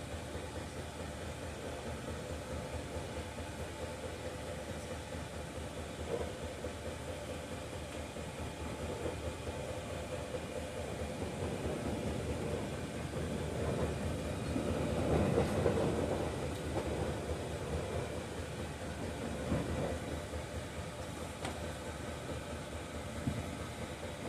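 Steady mechanical hum that swells louder around the middle and fades back, with a couple of faint knocks.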